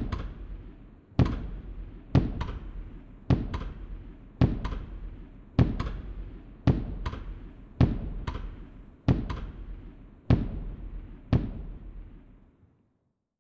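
Fireworks bursting in a steady series: a sharp bang about once a second, most followed at once by a smaller second crack, each trailing off in crackle and low rumble. About eleven bursts, the last one near the end.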